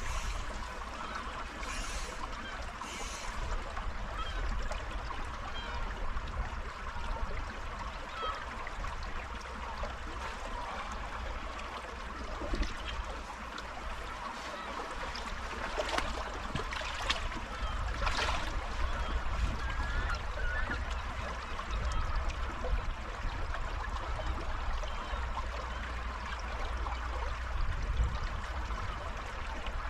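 A small river running: a steady rush of moving water, with a few brief sharp sounds scattered through it.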